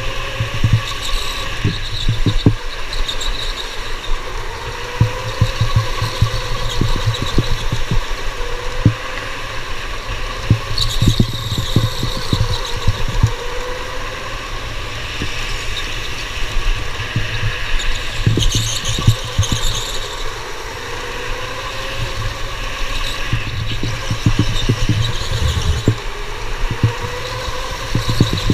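Onboard an electric indoor go-kart at speed: the motor's whine rises and falls with speed through the corners, with a steady rumble and thumps of wind and chassis vibration on the camera. Now and then the tyres squeal or scrape in a corner.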